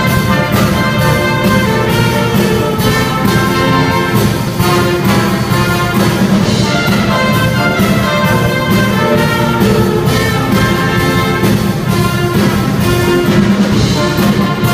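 Small brass band playing a tune, with tuba, trumpet and saxophones over a steady drumbeat from a drum kit.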